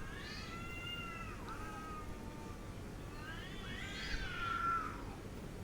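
An angry cat yowling: two long drawn-out wavering yowls, the second one louder.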